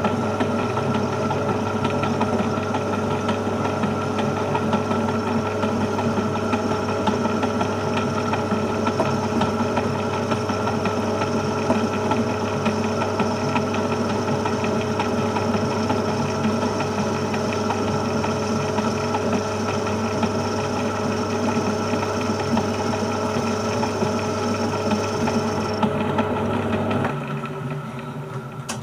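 Metal lathe running steadily under power while turning an aluminium workpiece: a constant motor hum with a few steady machine tones. Near the end the high tone stops, and then the motor noise drops away sharply as the lathe is switched off.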